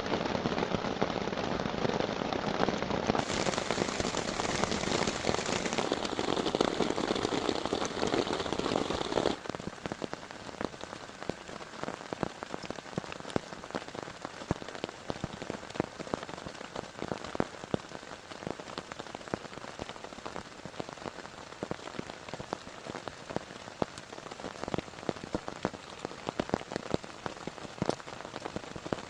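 Heavy rain falling, loud and dense for the first nine seconds or so, then abruptly quieter, with many separate drops ticking.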